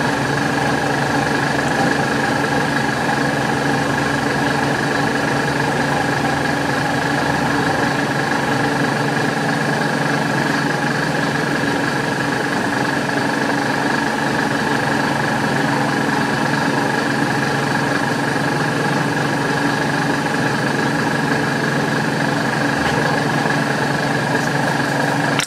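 Milling machine running an end mill through a slot in a metal bar: a steady machine whine with a constant hiss from the mist coolant spray, the cut going on without a break.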